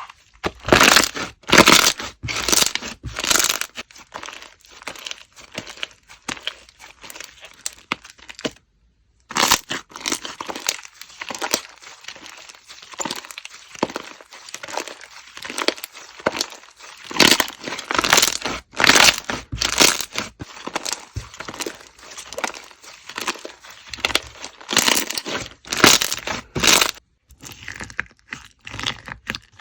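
Slime being squished, pressed and pulled by hand, giving irregular bursts of crackling, sticky noise, with a brief break about nine seconds in.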